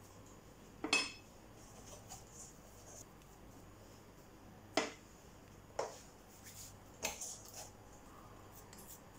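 Four light clinks and knocks of kitchenware as dough is handled: hands and dough touching a stainless steel mixing bowl and a ceramic plate, the first with a short metallic ring. A faint low hum runs underneath.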